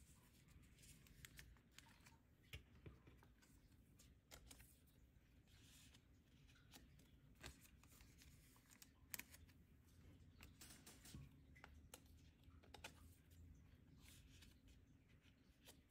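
Near silence, broken by faint scattered rustles and light clicks of plastic: sleeved photocards being handled and slid into the clear plastic pockets of a binder page.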